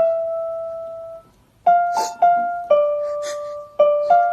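Background music: a slow piano melody of single notes struck and left to ring out, with a brief pause about a second in.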